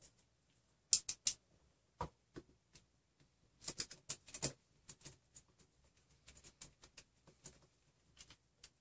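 Scattered small clicks and taps of M3 bolts and washers being handled and fitted to a stepper motor mount on an extruder. There are three sharp clicks about a second in, a denser cluster near the middle, and lighter ticks after that.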